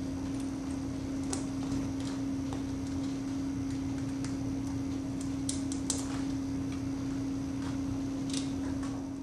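Small scattered clicks and taps of fingers working the wire connections at the fan motor's terminal box, over a steady low hum.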